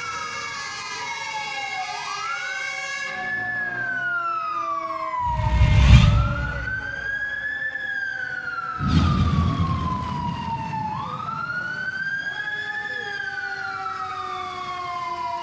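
An emergency siren wailing, its pitch sweeping slowly up and down about every five seconds, with a second lower tone falling beneath it. Two deep rumbling whooshes come about six and nine seconds in, the first the loudest moment.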